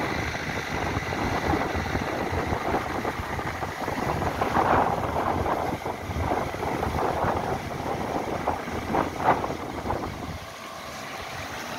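Wind buffeting the microphone over shallow surf, with splashing of feet running through ankle-deep seawater from about the middle on.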